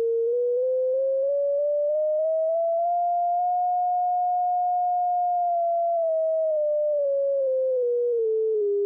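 A single synthesizer oscillator's nearly pure tone, its pitch stepping up by small increments for about four seconds and then stepping back down, as a controller dial sets its frequency.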